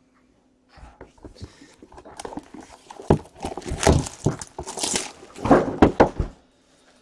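Clear shrink-wrap being torn and crinkled off a sealed box of trading cards, a fast run of crackling rustles that starts about a second in, is busiest in the middle and stops shortly before the end.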